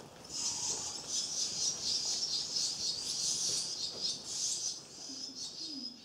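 Barn swallow nestlings begging in the nest: a dense chorus of high-pitched cheeping that stops near the end.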